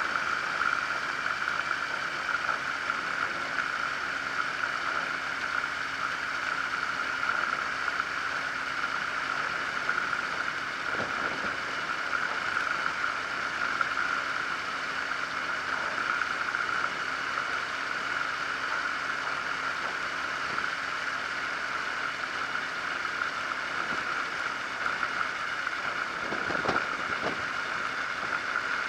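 Zenair 701 light aircraft engine idling steadily on the ground, its propeller turning slowly.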